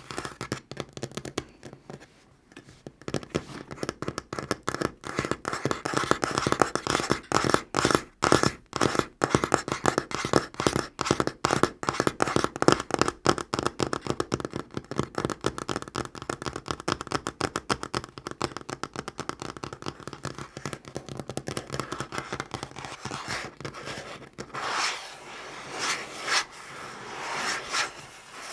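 Natural fingernails tapping fast on a tabletop in a dense run of clicks, with a short pause about two seconds in. Near the end the tapping gives way to the nails scratching across the surface.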